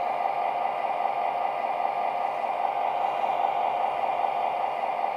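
Steady diesel idle sound from the onboard sound system of an MTH O-gauge Rio Grande diesel locomotive, played through the model's small speaker as an even, hissy drone.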